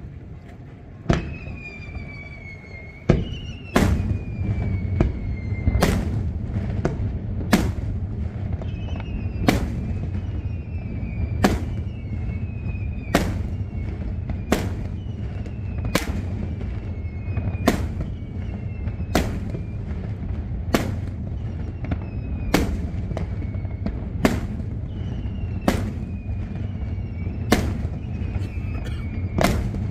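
Daylight fireworks going off in a rapid run: sharp bangs about once a second, with whistles falling in pitch between them, over a steady low rumble.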